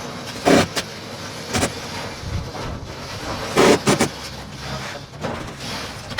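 Irregular knocks and bangs from building work: single knocks a second or so apart, then a quick cluster of three near the middle, with weaker ones near the end.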